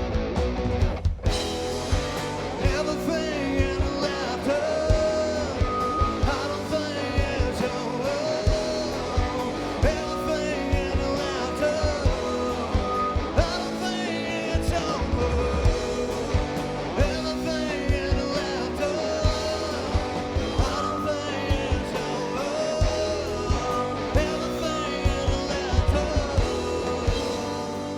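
Live rock band playing an instrumental passage: drum beat, bass and electric guitar, with a lead melody of bending notes that comes back about every four seconds.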